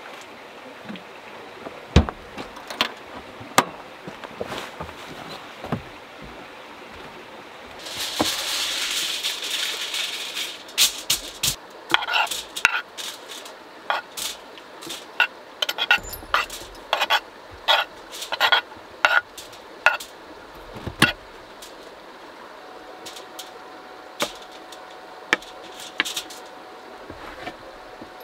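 Camp cookware and utensils clinking and knocking in scattered sharp taps, busiest in the middle, with a hiss lasting about two seconds around eight seconds in.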